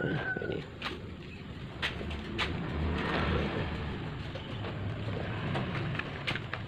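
Cloth rustling as it is spread over and tucked into a plastic tray by hand, with a few light ticks, over a low steady rumble.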